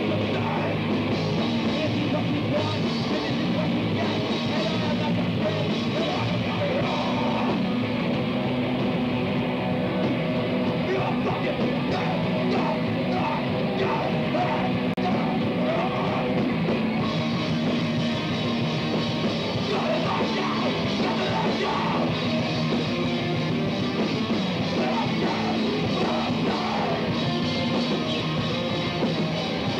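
Hardcore punk band playing live: loud distorted electric guitars, bass and drums, with a singer shouting over them.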